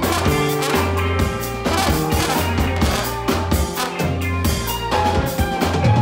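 Live band playing: drum kit, electric bass, guitar, keyboard, saxophone and trombone, with held bass notes and horn lines over a steady drum beat.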